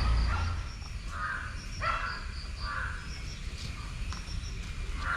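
A bird calls three times with short, rough calls, over faint, steady insect chirping.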